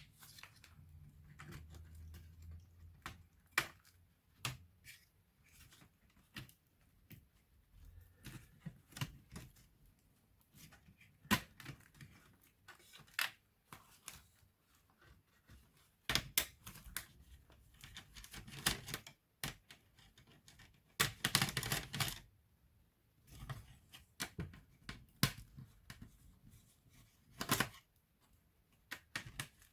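Irregular clicks and taps of hands working on a laptop's plastic case and parts, with a dense run of rattling clicks about two-thirds of the way through.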